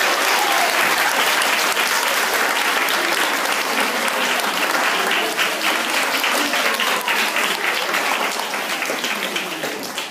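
Applause from an audience of schoolchildren and adults: dense clapping that fades off near the end.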